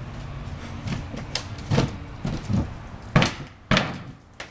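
A handful of sharp knocks and clunks, about five spread over a few seconds, the loudest about three seconds in.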